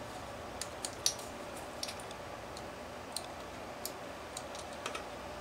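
Scattered light clicks and ticks of small metal model-engine parts and a tool being handled, about a dozen in all, over a steady background hiss.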